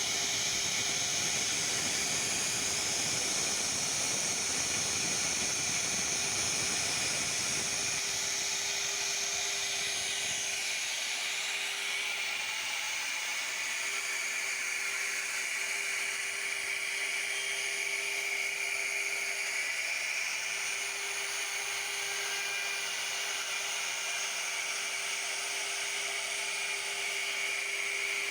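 CNC router 1325 running, its spindle giving a steady high whine over a hiss. A lower rumble drops away about eleven seconds in, while the whine goes on unchanged.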